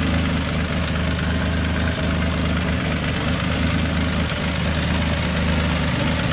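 Turbocharged Infiniti G35's V6 idling steadily, heard close up in the open engine bay. It is running with a new starter and battery fusible link fitted, and the link no longer burns out.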